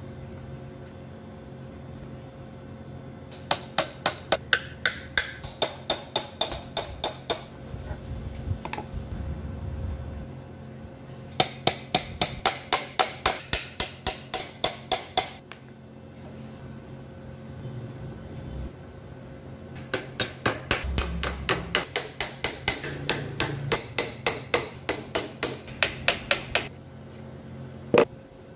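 Hammer tapping quickly in three runs of about four to five strikes a second, with one sharper single knock near the end.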